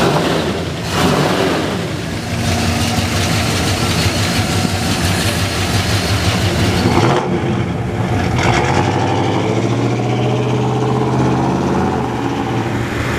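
The 455 cubic inch big-block V8 of a 1968 Oldsmobile Cutlass, fitted with headers and a Holley four-barrel carburettor, running at idle, heard from the open engine bay.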